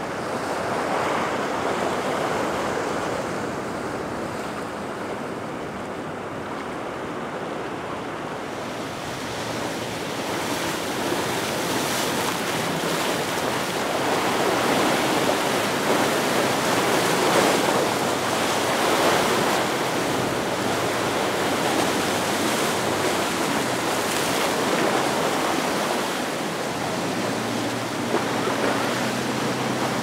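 Rough surf and wind-driven chop washing and breaking through an inlet, with wind buffeting the microphone; the rush grows louder after the first third. Near the end a low, steady hum of a passing boat's engine sits under the water noise.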